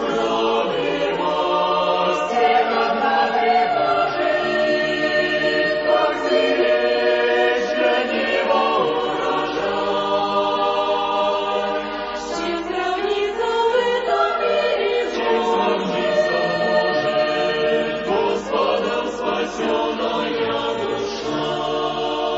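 A choir singing a hymn in sustained harmony.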